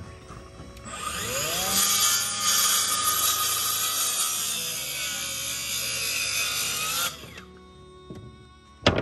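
Handheld circular saw spinning up about a second in and cutting across a wooden dog-ear fence board for about six seconds, its pitch sinking slightly under load before it stops. A sharp knock near the end.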